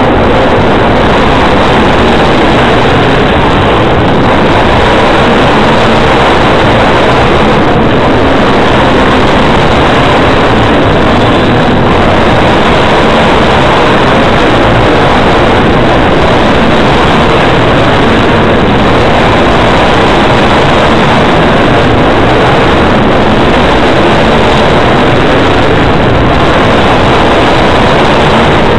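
Engines of several small racing vehicles running around an indoor flat track: a loud, steady din with no let-up.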